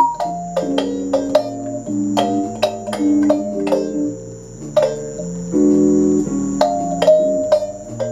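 Kalimba playing a calypso tune: a quick melody of plucked notes over held lower notes and chords.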